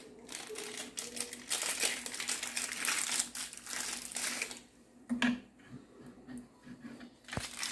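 Clear plastic packing bag crinkling as a microscope eyepiece is unwrapped from it, for about the first four and a half seconds. Then it goes quieter, with a few light knocks.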